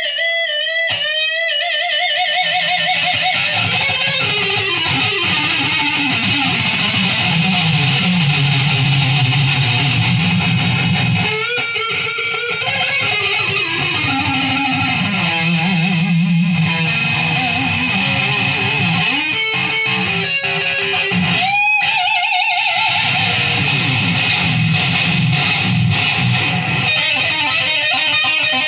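Music on guitar, most likely electric: a melody line whose notes waver and slide, over a lower accompaniment.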